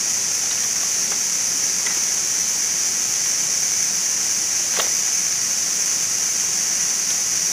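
Steady outdoor forest ambience: an even, high-pitched hiss, with one faint click about five seconds in.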